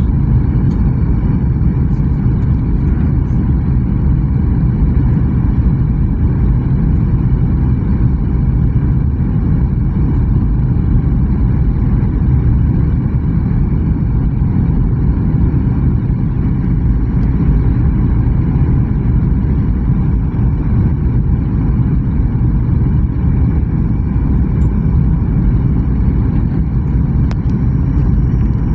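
Steady low drone inside a jet airliner's cabin during descent: engine and airflow noise heard from a window seat over the wing, even throughout.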